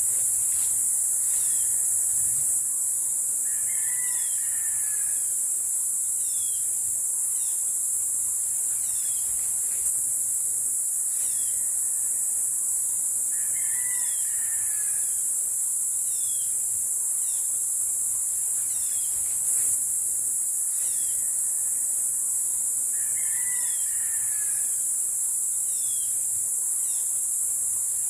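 Forest ambience: a steady, high-pitched chorus of insects, with a bird call recurring about every ten seconds and small quick falling chirps from other birds.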